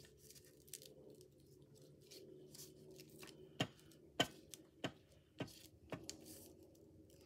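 Quiet paper-crafting handling sounds at a desk: hands working paper pieces and a glue stick, with five sharp light taps about half a second apart in the second half.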